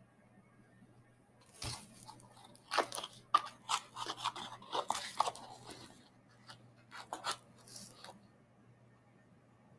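A run of dry paper crinkling and crunching from about a second and a half in to about six seconds, with a few more crunches around seven to eight seconds, as a paper towel and a cardboard box of baking soda are handled and a spoon scoops the powder. A faint steady hum lies underneath.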